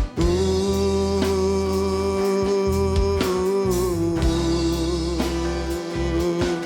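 Gospel band playing an instrumental passage: one long held melody note over bass and drums, dipping slightly in pitch a little past the middle.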